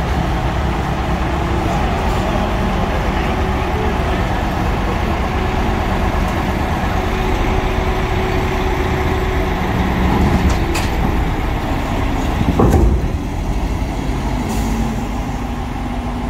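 Heavy diesel truck engine running steadily, with a single loud clank about three-quarters of the way through.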